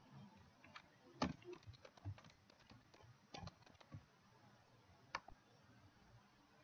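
Computer keyboard keys clicking faintly and irregularly as a short name is typed, over near-silent room tone.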